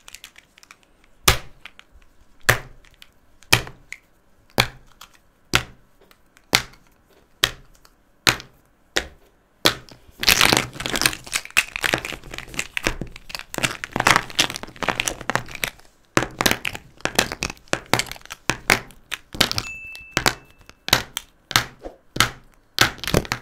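Plastic felt-tip markers knocking on a tabletop: single sharp clicks about once a second at first, then a dense clatter of many markers handled together, then more scattered knocks.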